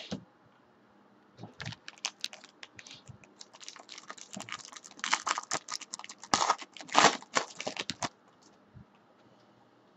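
A foil trading-card pack crinkling and tearing as it is ripped open by hand: a quick run of crackles that starts about a second and a half in, is loudest from about five to seven seconds in, and stops about eight seconds in.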